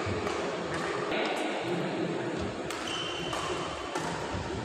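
Badminton hall ambience: a steady murmur of spectators with a few light knocks. A brief high squeak comes near the end, like shoes on the court mat.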